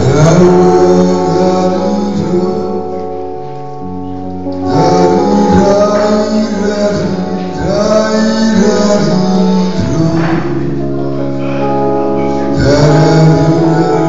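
A man singing through a microphone, in phrases with long held notes, over an electronic keyboard accompaniment.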